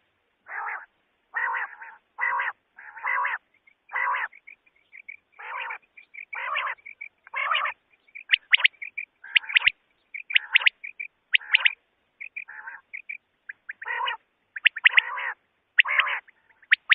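Common quail calling repeatedly: rasping notes of about a third of a second alternate with runs of quick, sharp, high-pitched notes, the kind of quail call played as a lure for night hunting.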